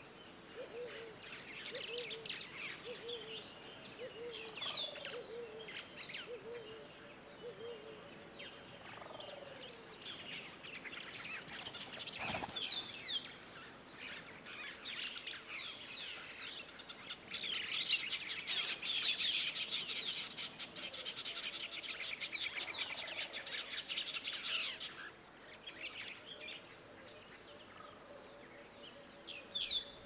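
Mixed wild birdsong: many chirps and calls, a run of short low descending calls in the first eight seconds, and a fast trill from about eighteen to twenty-four seconds in, over a high note pulsing about once a second. A single sharp knock comes near the middle.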